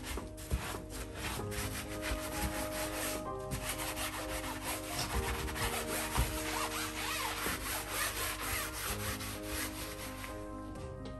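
A sponge scrubbing a stainless steel gas hob coated in cleaning paste, in quick back-and-forth rubbing strokes that ease off near the end.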